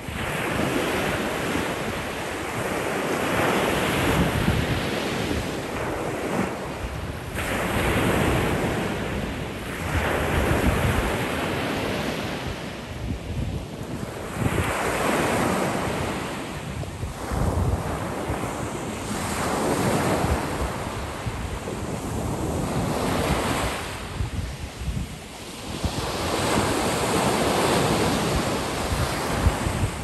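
Black Sea surf breaking on a fine pebble beach: each small wave crashes and washes up the shore in a rush that swells and ebbs about every three to four seconds. Wind buffets the microphone underneath.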